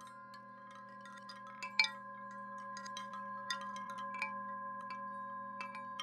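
Chimes tinkling in sparse, irregular strikes, some ringing briefly, over a steady drone of several held tones.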